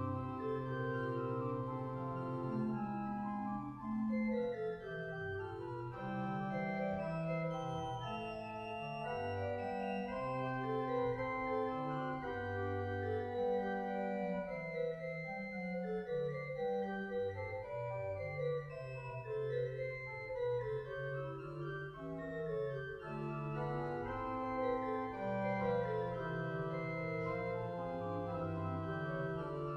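Organ music: slow playing in sustained chords, the held notes changing every second or so.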